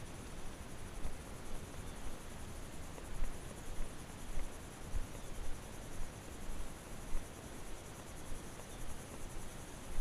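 Insects buzzing steadily in a high, pulsing drone, with irregular soft low thuds from a horse walking on a dirt trail and its tack jostling.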